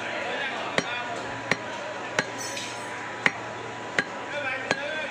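Knife chopping through beef fat onto a wooden chopping block: six sharp knocks at a steady pace, about one every 0.7 seconds.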